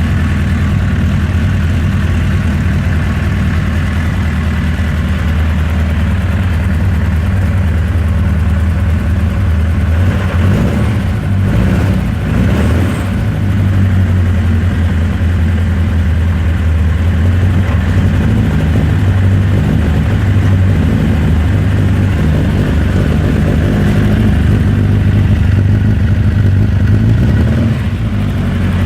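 Vehicle engine idling roughly: a loud, steady low hum whose running wavers, with a brief unsteady patch about ten to thirteen seconds in.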